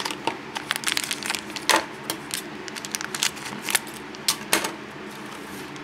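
Crinkly plastic blind-bag wrapper rustling and crackling in the hands as it is opened, in a rapid irregular run of sharp crackles.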